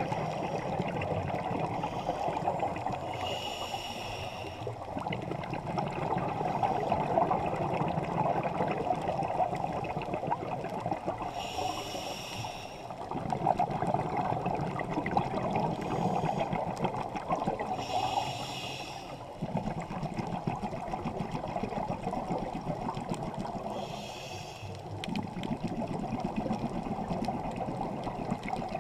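A scuba diver breathing through a regulator, heard underwater through a GoPro housing: a short hissing inhale about every six seconds, with a bubbling, gurgling stream of exhaled bubbles in between.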